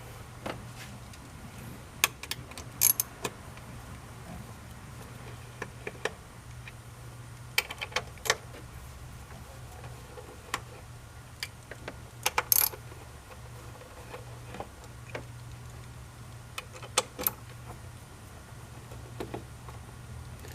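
Scattered sharp metallic clicks and clinks from hand tools and bolts as the 8mm throttle-body bolts are taken out, some in short quick clusters, over a steady low hum.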